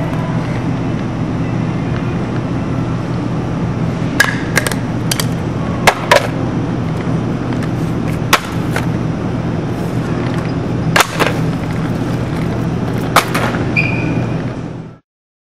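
Store goods dropping one after another onto a hard floor: a lint roller, a small box, plastic cups and a magazine hitting it in about ten sharp clacks and thumps, some in quick pairs. They come over a steady background hum, and the sound cuts off suddenly near the end.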